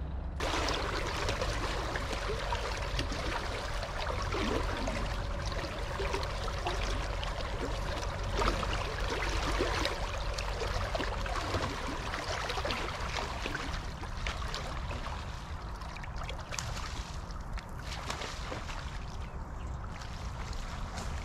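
River water trickling and running around a boat, with scattered small ticks. A faint steady whine runs through the first half and stops about eleven seconds in.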